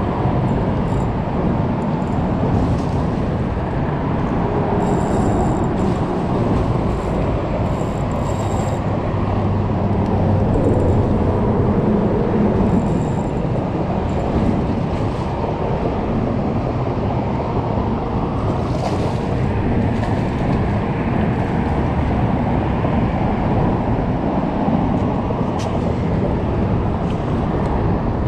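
Steady rumble of road traffic on the highway bridge overhead, a little louder for a few seconds around the middle.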